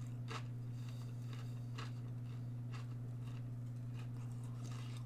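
Faint chewing of breaded vegan chicken-free strips: a few spaced, crunchy bites of a coating baked a little too long and gone dry and hard. A steady low electrical hum runs underneath.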